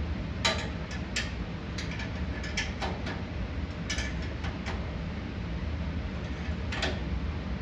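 Irregular light metal clicks and clinks from a lock washer, nut and bolt being handled and threaded by hand on a bumper bracket, about nine in all, over a steady low hum.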